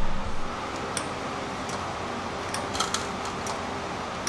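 A few scattered light clicks over steady background noise.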